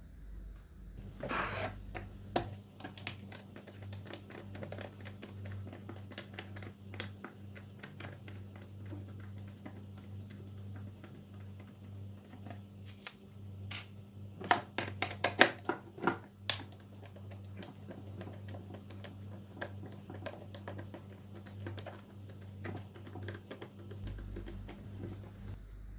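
Rapid light clicking and tapping of small hard parts being handled, with a burst of louder clicks about halfway through, over a steady low hum.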